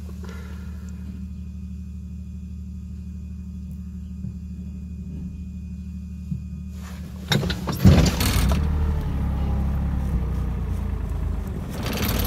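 Weidemann yard loader's diesel engine idling steadily, then revving up about seven seconds in. The revving comes with a few loud knocks, and the engine keeps running louder after that.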